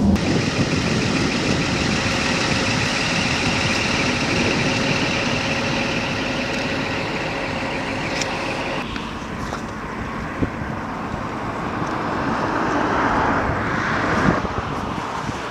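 Tour bus cabin noise, the engine and road noise steady with a couple of fixed whining tones, which cuts off abruptly about nine seconds in. After that comes a rushing outdoor noise that swells a few seconds before the end and then eases.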